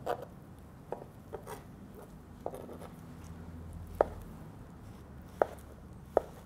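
Kitchen knife slicing mortadella into thin julienne strips on a cutting board: about half a dozen sharp, unevenly spaced taps of the blade striking the board.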